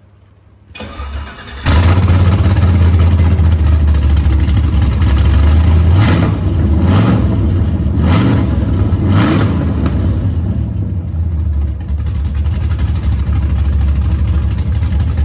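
Chevrolet Gen V LT1 6.2-litre V8, swapped into a 1973 Impala, cranks briefly on the starter and catches about two seconds in, then runs loud. Around the middle it is blipped four times in quick revs before settling back. The revs show the engine now has throttle response with a Camaro accelerator pedal plugged in, after getting none from the wrong pedal.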